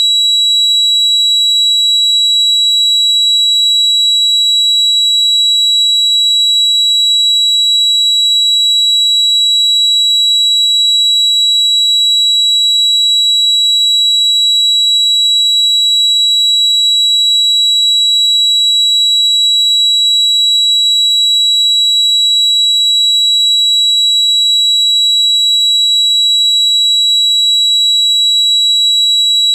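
Tinnitus sound effect: a loud, steady, high-pitched electronic ringing tone held unbroken and unchanging.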